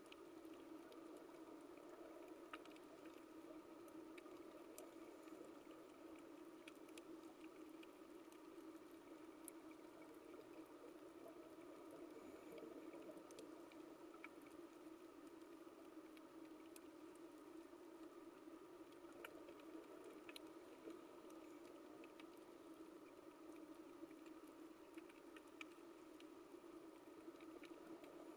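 Faint underwater coral reef ambience: a steady low hiss with scattered sharp clicks throughout.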